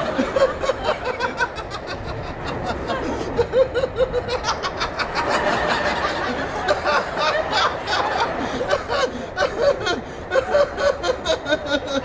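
A man laughing steadily, a long run of quick repeated chuckles.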